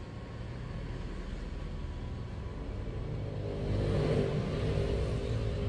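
A steady low rumble, joined about three and a half seconds in by an engine hum that swells and then fades, like a motor vehicle passing.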